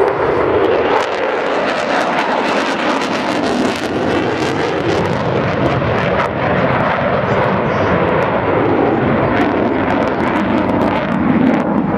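F-16 fighter jet in flight, its engine noise a loud, steady rush with a rough crackle through it, stronger in the middle and again near the end.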